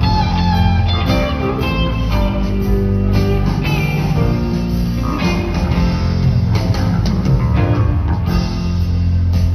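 Live rock band playing an instrumental passage, with an electric guitar melody bending between notes over sustained bass, keyboards and drums, heard from within the audience.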